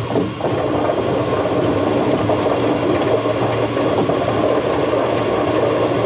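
Snail-shaped monorail car running along its track, heard from inside the car: a steady mechanical rattle and rumble with fine rapid ticking.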